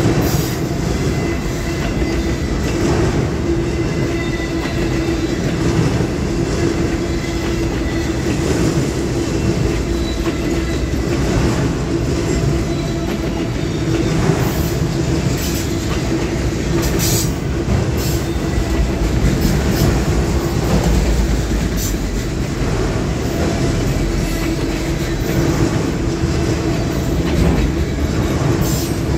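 Freight train of autorack cars rolling past at trackside: a steady rumble of steel wheels on rail with scattered clicks and a steady low hum.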